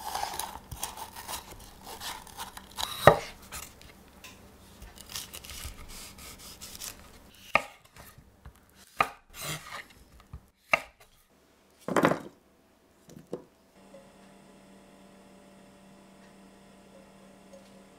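Chef's knife slicing and chopping a red bell pepper on a wooden cutting board, with irregular knocks of the blade on the board. After about 14 seconds the cutting stops and a faint steady hum remains.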